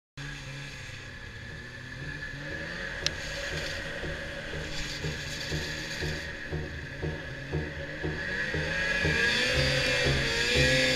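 Electronic rock music: a gritty, mechanical-sounding beat over an evenly repeating low pulse, growing louder.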